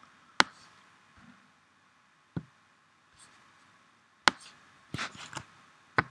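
Computer mouse clicking: sharp single clicks spaced a second or two apart, with a quick cluster of clicks about five seconds in.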